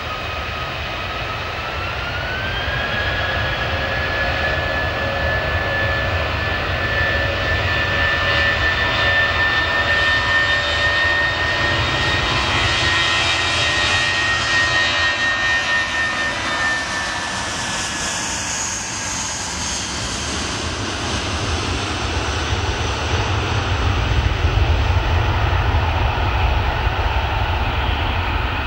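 Airliner jet engines at a runway. An Airbus A320-family twin-jet's whine rises in pitch about two seconds in as its engines spool up, holds steady, then fades. Near the end a deeper, louder rumble swells as the Boeing 777-300ER, with GE90-115B engines, rolls along the runway after landing.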